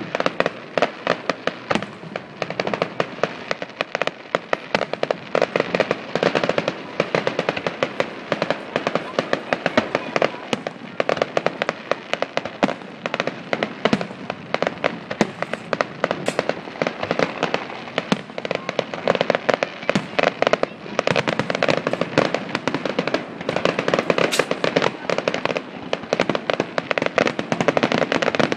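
Fireworks grand finale: aerial shells bursting in rapid succession, many sharp bangs and crackles a second with no let-up.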